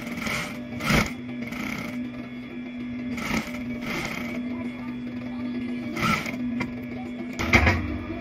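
Industrial sewing machine: a steady motor hum with several short bursts of stitching.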